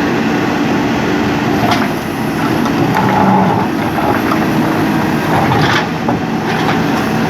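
JCB backhoe loader's diesel engine running steadily, with a few short knocks, about two seconds in and again near six seconds in.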